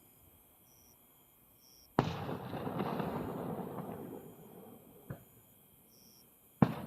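Fireworks shells bursting: one sharp bang about two seconds in, followed by a few seconds of fading crackle, then a faint pop, and another sharp bang near the end.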